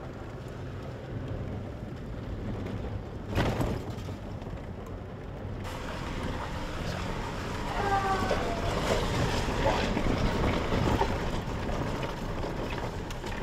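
A Toyota driving over a rough gravel road, heard from inside the cab: a steady rumble of engine and tyres on gravel, with a knock about three and a half seconds in.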